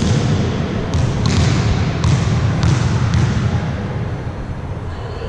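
Volleyballs being hit and bouncing on the floor of an echoing sports hall: several sharp thuds over a steady low rumble of hall noise.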